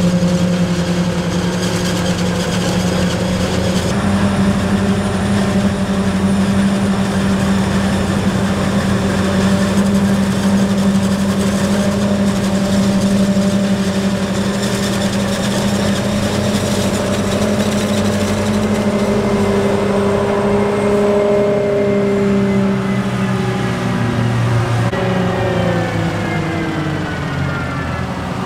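Heavy diesel machinery engine running steadily at high revs during maize chopping and hauling; near the end the engine pitch falls.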